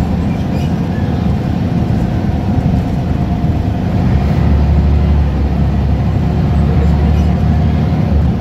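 Scania L94UB Wright Solar single-deck bus heard from inside the saloon while under way: its rear-mounted five-cylinder diesel engine running with road and tyre noise. The low engine drone grows louder about halfway through and holds.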